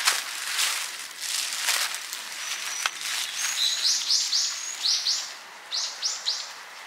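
A small bird chirping outdoors in quick runs of short, high notes through the second half. In the first couple of seconds, scuffing footsteps on wet ground are louder.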